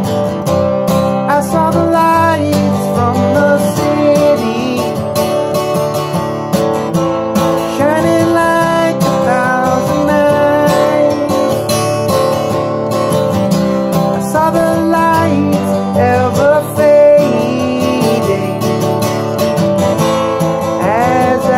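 Acoustic guitar strummed and picked in a steady accompaniment rhythm.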